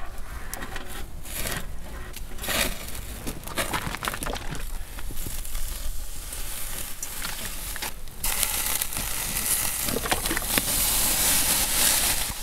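Skewered beef liver and sheep's tail fat sizzling and crackling on a grill, with a steady hiss full of small pops. The sizzle grows louder and denser about eight seconds in.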